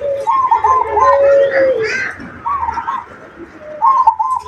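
A dove cooing in repeated phrases. Each phrase is a long low note followed by a quick run of short, higher, arched notes, and about three phrases are heard.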